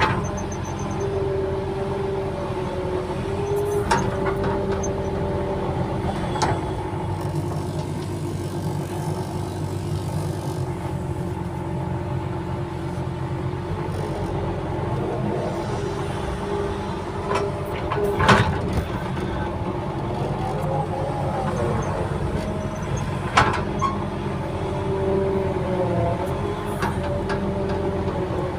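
Heavy diesel engine of an earthmoving machine running under load, its pitch shifting slightly, with a few sharp metallic clanks, the loudest about two-thirds of the way through.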